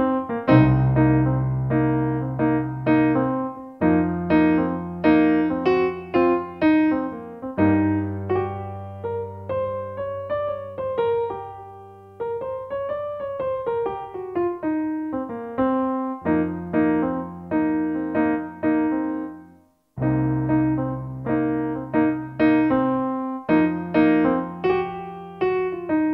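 Background piano music playing a repeating pattern of notes, breaking off for a moment about twenty seconds in.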